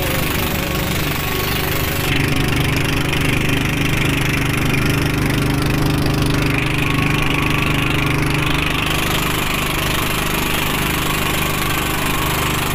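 A small boat's engine running steadily under way, a low droning hum over the constant rush of water and wind.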